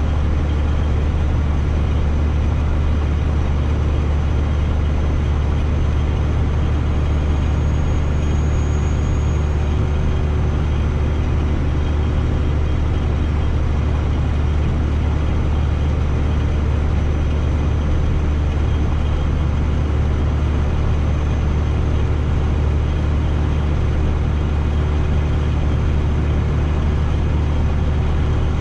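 Semi truck driving at a steady speed: a constant low drone of engine and road noise that does not change.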